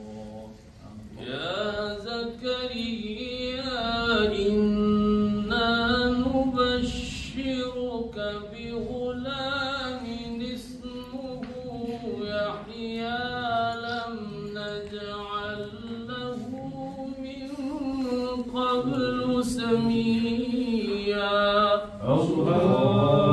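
A man's solo voice chanting a slow, melismatic religious recitation into a microphone, in long held phrases with ornamented turns.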